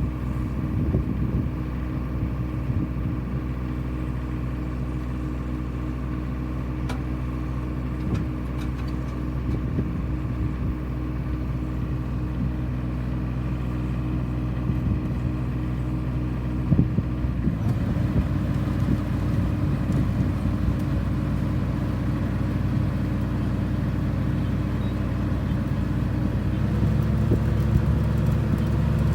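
An engine, most likely on rice-harvesting farm machinery, runs steadily. Its note shifts about two-thirds of the way through and again near the end.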